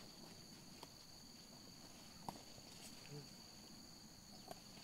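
Near silence with faint, steady, high-pitched insect chirring, likely crickets, and a couple of light clicks.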